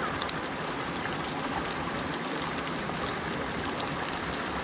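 Chopped garlic sizzling in hot cooking oil: a steady frying hiss with small crackles and pops.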